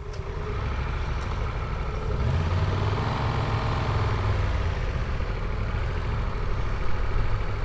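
A vehicle engine running under way, over a steady rumble and haze of road noise. About two seconds in the revs rise, then ease off again.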